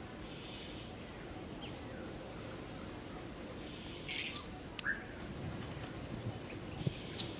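Steady outdoor background hiss with a few brief high chirps about four to five seconds in, and a couple of faint clicks near the end.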